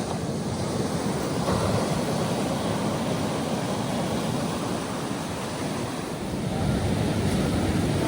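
Ocean surf: waves breaking and washing up the beach in a continuous rush, swelling louder about a second and a half in and again near the end.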